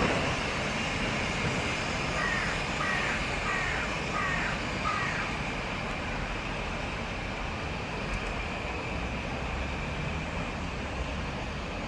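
LMS Black 5 4-6-0 steam locomotive and its support coach moving slowly away, a steady rumble and hiss that gradually fades. About two seconds in, a bird gives five short cawing calls.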